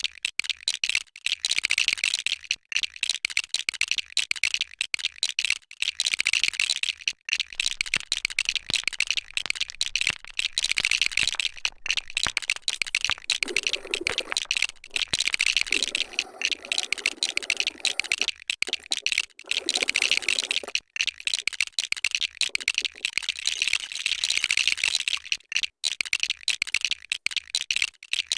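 A continuous dry clattering rattle, like fast typing, coming in dense pulses of a second or two. About halfway through, a duller, lower scraping sound joins in twice.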